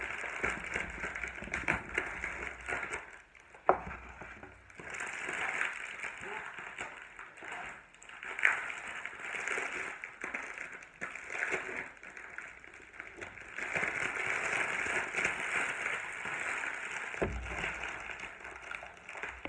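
Foil and printed plastic wrapping of a chocolate Easter egg crinkling and rustling as it is pulled open by hand, with scattered sharper crackles. A dull thump about four seconds in and another near the end.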